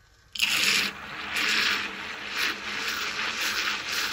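Battery-powered self-stirring mug starting up: its small motor spins the stirrer in the base of the cup of water, a noisy whir with water churning that starts suddenly about half a second in and then swells and eases in waves.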